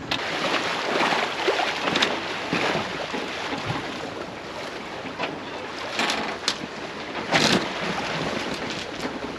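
Water rushing and splashing along a Leopard 45 sailing catamaran's hull as it moves through swell, with wind on the microphone. The noise swells with each wave, the loudest splash coming late on.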